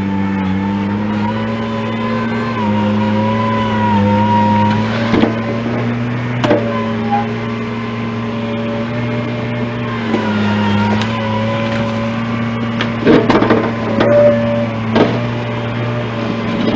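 An engine running steadily, its pitch dipping and rising slightly as the load changes, with several sharp knocks and clanks from the working machine, most of them in the second half.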